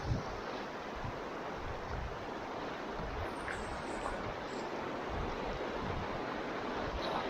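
Steady rushing of river water, with low buffeting of wind on the microphone.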